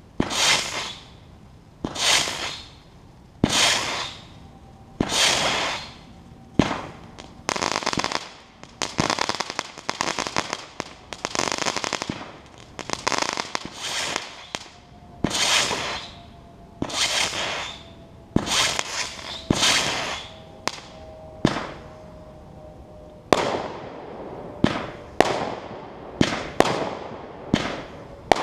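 Mad Moth 25-shot firework barrage cake firing shot after shot, roughly one every second or so: each shot a sharp bang followed by a hissing, crackling burst, with the crackle running almost continuously for a stretch in the middle.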